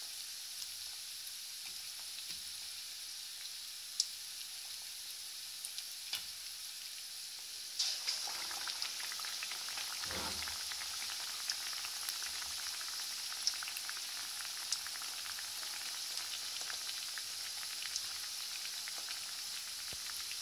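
Batter-coated fish pieces deep-frying in very hot oil in an iron karahi: a steady sizzle dotted with small pops and crackles, growing louder about eight seconds in.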